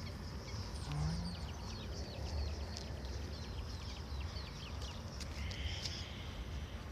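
Small birds chirping in many short, quick notes, over a steady low rumble.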